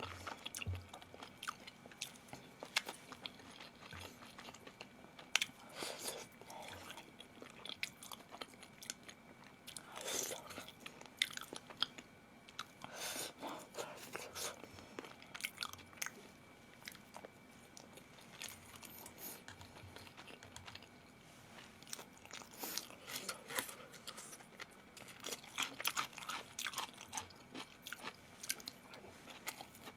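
A person chewing and biting food, with irregular crunchy bites.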